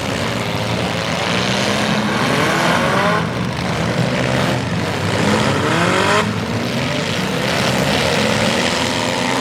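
Engines of several front-wheel-drive demolition derby cars revving, their pitches rising and falling over one another.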